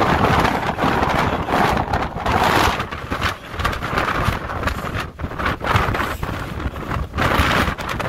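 Strong wind buffeting the camera microphone: a loud, rough rush with a low rumble that swells and eases in irregular gusts.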